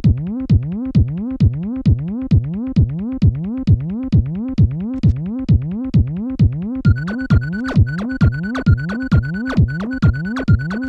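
Electronic music: a sweeping synth note repeats about twice a second over a steady beat, and a steady high beeping tone joins about seven seconds in.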